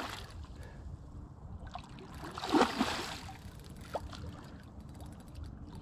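Water swirling and lapping at the edge of a rocky riverbank, stirred by a hooked fish near the surface, with one louder splashing rush about two and a half seconds in.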